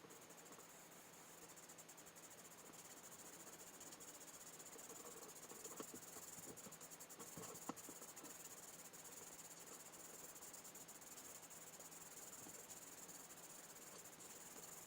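Near silence: a faint steady high hiss, with a few light clicks about halfway through.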